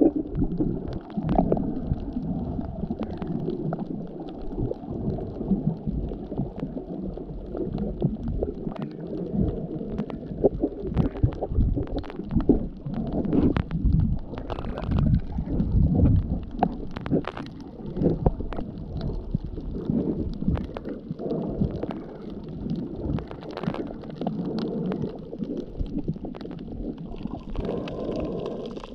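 Muffled underwater sound picked up by a camera held below the surface: a constant low rumbling wash of moving water, broken by many small irregular clicks and pops.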